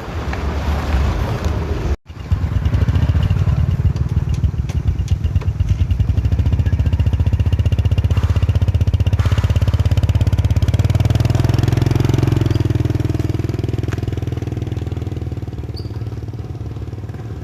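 Small engine running close by, a steady pulsing low rumble that cuts out for an instant about two seconds in, then runs on and eases off slightly near the end.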